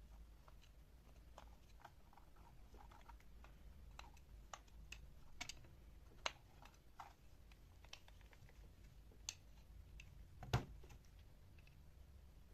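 Sparse, quiet clicks and light taps of small hard objects being handled, with a sharper knock about ten and a half seconds in.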